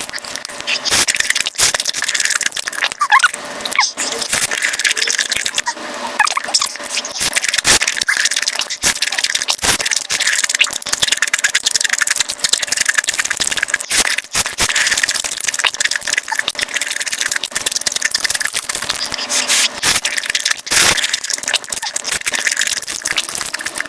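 Mukbang eating sounds picked up close to the microphone and sped up: a dense, fast run of chewing clicks and wet smacks, with a few brief squeaky glides.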